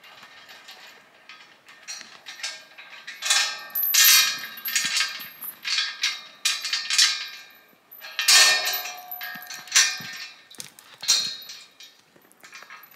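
Chain rattling and clanking against steel-tube farm gates as it is unwrapped, the hollow gate tubes ringing after the sharper knocks. The loudest clangs come about four seconds in and again about eight seconds in.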